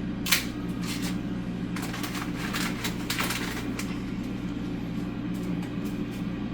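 Dry spaghetti snapped by hand into short pieces: a sharp crack about a third of a second in, then a run of smaller crackles and snaps. A steady low hum sits underneath.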